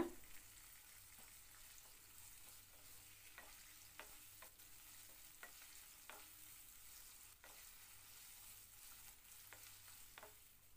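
Faint sizzling of sliced onion, capsicum and tomato sautéing in oil in a non-stick pan, with scattered light taps of a wooden spatula against the pan as the vegetables are stirred.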